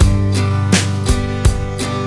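Background music: a guitar-led instrumental with a steady beat, about three beats a second.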